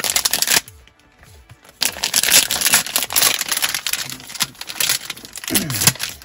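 Crinkling of a plastic trading-card pack wrapper as the pack is handled and opened: a short burst at the start, a brief lull, then near-continuous crinkling from about two seconds in. Background music plays along.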